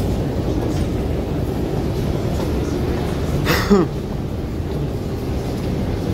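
Steady low rumble and general din of a busy metro transfer corridor with people walking through it. About three and a half seconds in, a brief high sound drops sharply in pitch and stops.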